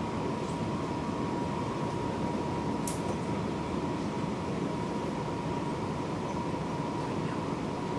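Interior running sound of a Seibu 6000 series electric train, heard in one of its motor cars: a steady rumble of wheels and running gear with a thin, steady high tone over it, and one brief sharp tick about three seconds in.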